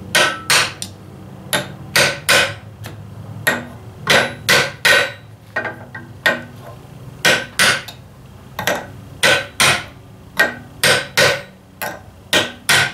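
Ball-peen hammer tapping a new seal down the axle shaft of a 1944 Ford 2N tractor's rear axle: about twenty sharp, ringing blows, mostly in pairs or threes with short pauses between.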